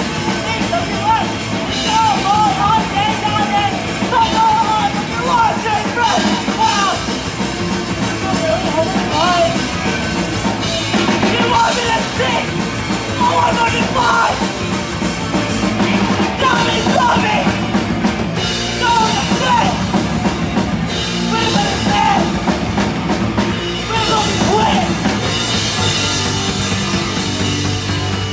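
Live punk rock band playing loudly: drum kit, bass and distorted electric guitar, with a woman singing into a microphone in stretches over the band.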